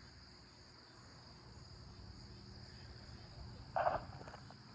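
Faint, steady chorus of insects outdoors, with a brief short noise about four seconds in.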